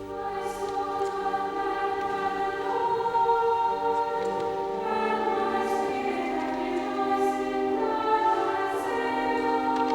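Church choir of men and boy choristers singing slow, sustained chords.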